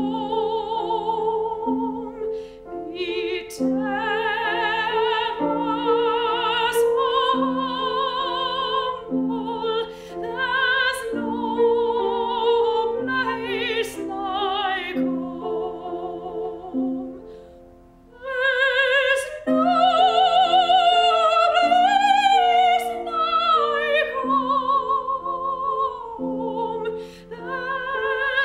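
Classically trained soprano singing an operatic song with wide vibrato, over held piano chords. The sound breaks briefly about two-thirds of the way through, then returns louder and higher.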